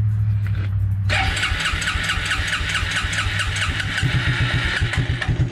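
1996 Suzuki King Quad 300's single-cylinder four-stroke engine being cranked on its electric starter, then catching and running just barely, on fuel that had worked its way down into the carburetor during cranking.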